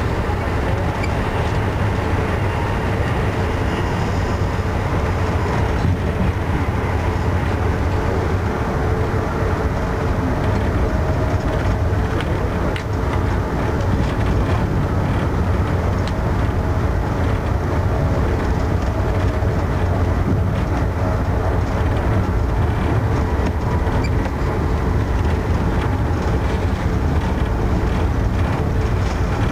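Amtrak Northeast Regional passenger train running at speed, heard from on board: a steady low rumble of wheels on rail with a few faint clicks scattered through it.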